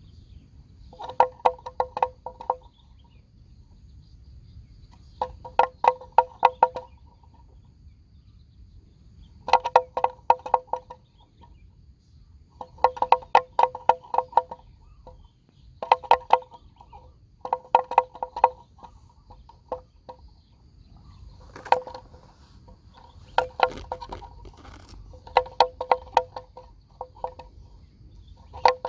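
Rapid pulsed animal calls in bursts of one to two seconds, repeating every few seconds, with a faint steady high-pitched whine underneath.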